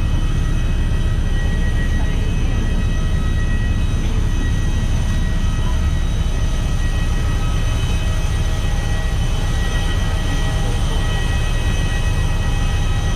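Airliner engines running steadily just after landing: a loud, even low rumble with several steady high whining tones on top.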